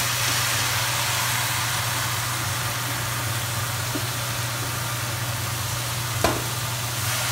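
Shredded white radish sizzling in a hot oiled wok as it is tipped in from a bowl, an even hiss over a steady low hum. A single sharp clink about six seconds in.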